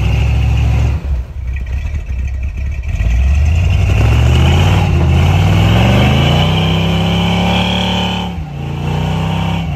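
Square-body K5 Blazer's engine under hard throttle in deep snow: it revs up steadily for several seconds, holds high, then drops off sharply near the end, with the tyres spinning and churning snow.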